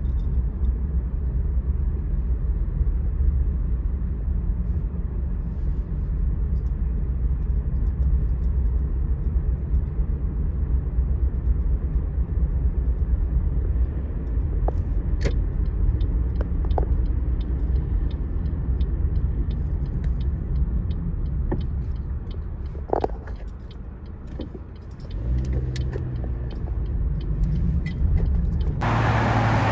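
Steady low rumble like a car's road noise, with a few light clicks and rattles. Near the end it dips briefly, then cuts abruptly to a brighter, louder hiss.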